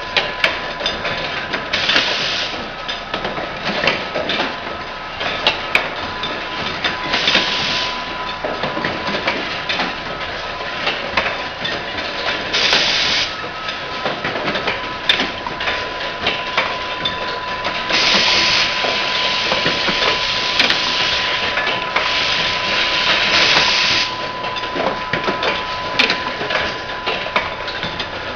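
Automatic insulin syringe assembly machine running: a continuous rapid clatter of clicks and knocks from its moving parts, with short bursts of air hiss every few seconds as its pneumatic cylinders exhaust, over a steady high tone.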